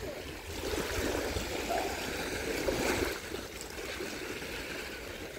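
Small waves washing over a pebble shingle beach at the water's edge, swelling about half a second in and easing off after about three seconds.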